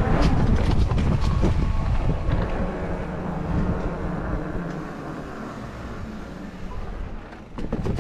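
Wind buffeting an action camera's microphone, with the tyres of an electric mountain bike rumbling over pavement as it is ridden. There are a few sharp knocks in the first couple of seconds, and it grows quieter in the second half.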